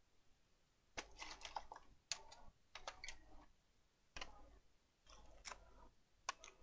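Faint clicking and rustling of small parts and packaging being handled while searching for a spare laptop charging port, in about half a dozen short, irregular clusters.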